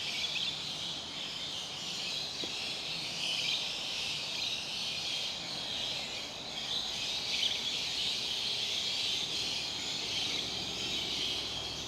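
Steady outdoor chorus of insects, a high continuous shrill, with a few faint short chirps over it.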